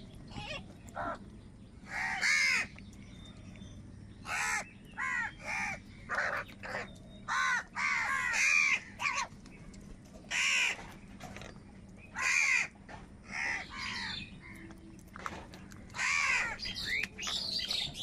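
Several crows cawing: a long run of harsh caws at irregular intervals, some calls overlapping, with short gaps between.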